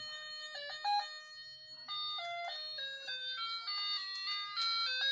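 1990 battery-operated toy bike's sound chip playing an electronic beeping tune through its small speaker: a melody of buzzy stepped notes that change pitch every fraction of a second.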